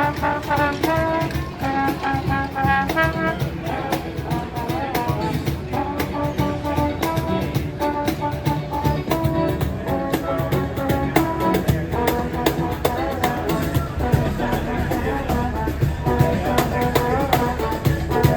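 Band music with brass horns playing held melody notes over drums and bass.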